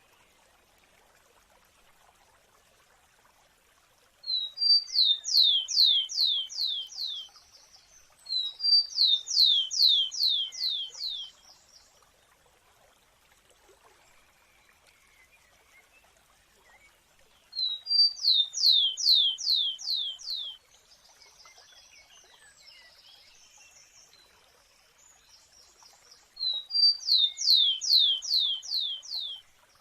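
A sparrow singing the same song four times with pauses between: each song opens with one or two short notes, then a quick run of about six down-slurred whistles, ending in a brief buzzy trill.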